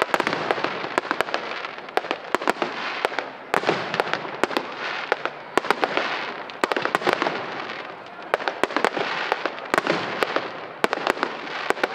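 Aerial fireworks display: a dense, unbroken run of sharp bangs from bursting shells, several a second, over a continuous crackle.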